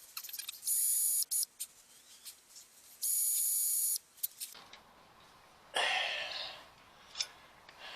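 A small high-speed power tool runs in two short bursts, about half a second and then a second long, each starting and stopping abruptly with a high whine. Near the six-second mark comes a rougher rasping burst that fades away over about a second.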